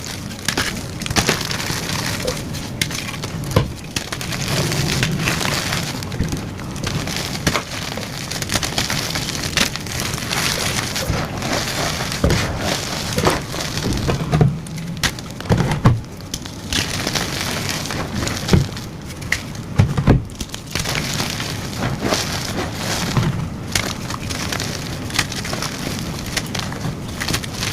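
Blocks of gym chalk being crushed and crumbled: a continuous dry crunching crackle dotted with sharper snaps as pieces break.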